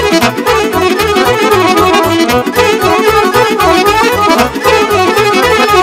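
Live Romanian folk dance music with no singing: an instrumental break led by accordion and horns over a steady bass beat.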